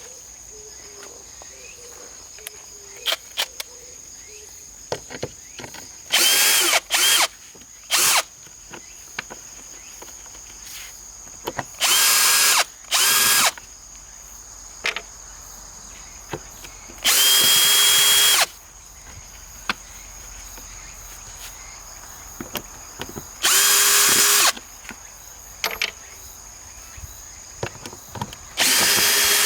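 A power drill/driver runs in about six short bursts of one to two seconds each, with scattered clicks and knocks between them. Cicadas buzz steadily throughout.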